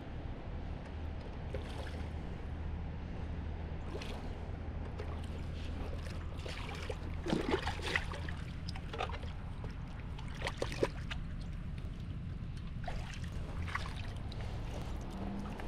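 A hooked fish splashing at the water's surface in the shallows as it is brought in to the bank, in short bouts: a cluster of splashes about halfway through and another a few seconds later, over a steady low rumble.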